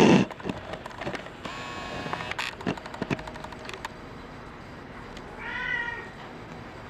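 Maine Coon kitten giving one short, high mew about five and a half seconds in. Scattered light taps and clicks come before it, with a brief rustle at the very start.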